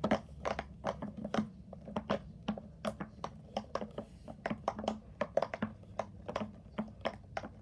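Silicone pop-it fidget toy bubbles being pressed through, a quick irregular series of small pops, a few a second.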